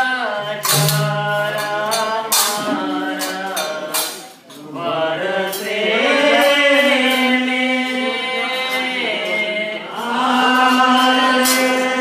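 Devotional bhajan singing with held, sustained notes, accompanied by sharp percussion strikes.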